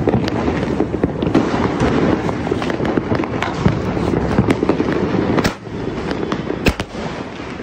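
Firecrackers going off: a dense run of rapid crackling pops for about five and a half seconds, then scattered pops with one sharp bang near the end.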